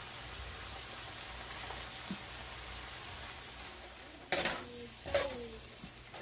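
Goat meat and tomato sauce sizzling in a metal pan with a steady hiss. About four seconds in, a metal spoon strikes the pan twice while stirring, with short ringing clanks.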